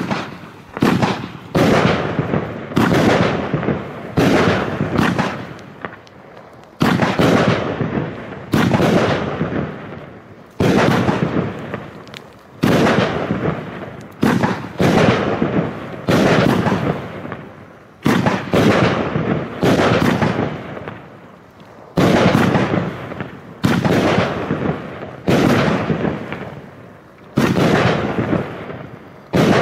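A 16-shot 30 mm fireworks cake (CAROLUS battery) firing its shots in a steady string, roughly one every second or two. Each is a sharp bang that dies away over a second or so.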